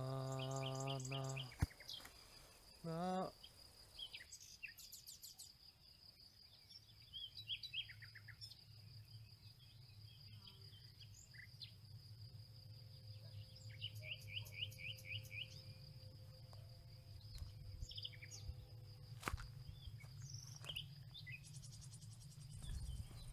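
Meadow ambience: scattered bird chirps and trills and a steady high insect whine over a low rumble. It opens with a loud, held low call with strong overtones that stops suddenly about a second and a half in, and a shorter one comes about three seconds in.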